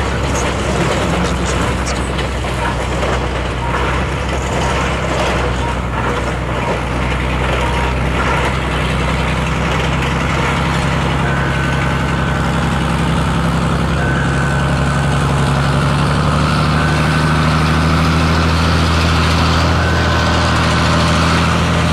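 Freight train of open wagons rolling past with a steady rumble, the diesel engine of a 409Da shunting locomotive at its rear growing louder toward the end. From about halfway a short high beep repeats about every three seconds.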